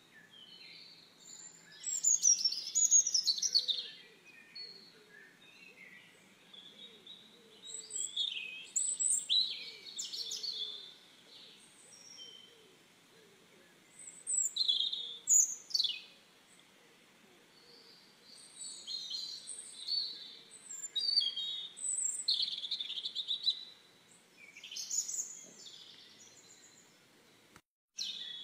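High-pitched bird chirping in groups lasting a second or two, repeating every few seconds. The loudest group comes about two seconds in and has quick falling chirps.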